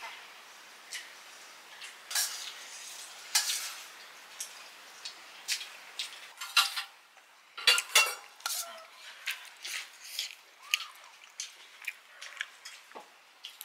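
Metal utensils clinking and scraping against steel dishes in irregular short knocks, with a busier, louder flurry a little past the middle.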